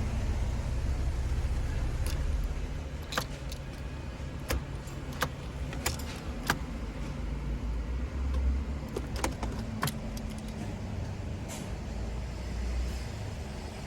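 Volkswagen GTI engine running steadily, with a scattering of sharp clicks in the middle stretch.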